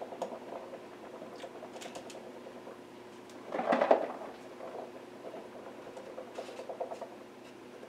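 Feta cheese crumbles shaken from a plastic tub onto a gyro on a plate: a light patter of small taps and rattles, with a louder rattle about three and a half seconds in, over a steady hum.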